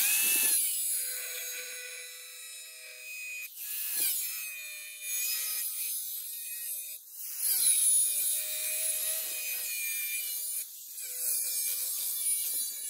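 Small angle grinder with a cut-off disc cutting through a thin steel sheet. It makes a high hissing grind over a steady motor whine, the pitch wavering as the disc bites, and the sound drops away briefly about three times before the cut resumes.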